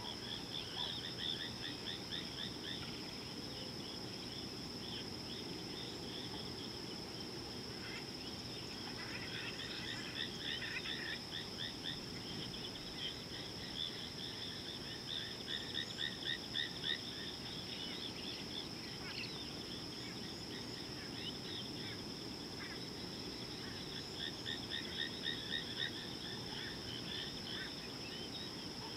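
Natural outdoor ambience: insects keep up a steady, high-pitched drone, while birds call in runs of quick repeated chirps that come and go, over a low, even background rumble.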